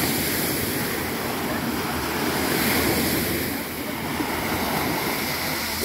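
Small waves breaking and washing up a pebble beach: a steady rush of surf.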